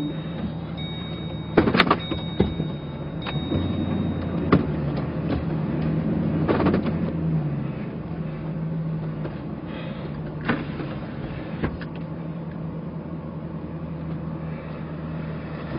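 A steady low motor hum that shifts pitch slightly about halfway through, with about six sharp cracks or knocks scattered across it.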